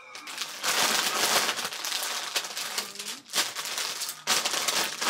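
Plastic snack packaging crinkling and rustling as it is handled, with a couple of brief pauses.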